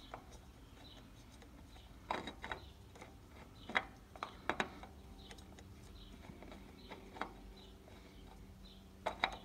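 Faint scrapes and a few short clicks of a new oil filter being turned by hand onto its threads on a lawn tractor engine, spread out over several seconds.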